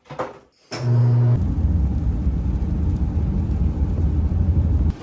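A motor vehicle engine running with a loud, steady low rumble. It starts suddenly about a second in and cuts off abruptly just before the end.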